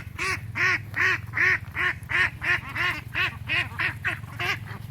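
Domestic waterfowl calling over and over in a steady series, about three calls a second, each call rising and falling in pitch. A steady low hum runs underneath.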